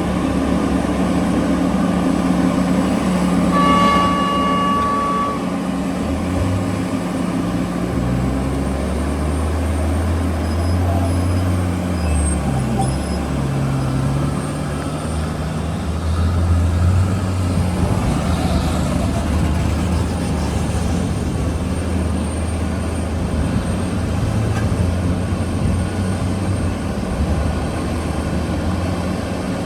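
Heavy mining machinery diesel engines running, their low drone shifting up and down in pitch as the machines work under changing load. A short horn toot sounds about four seconds in.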